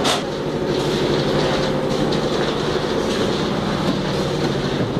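Concrete mixer machine running steadily, its engine droning under a dense, even rattle, with a sharp clank at the start.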